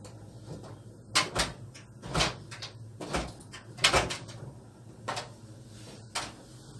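A string of irregular knocks and bangs, about eight in all, the loudest about four seconds in.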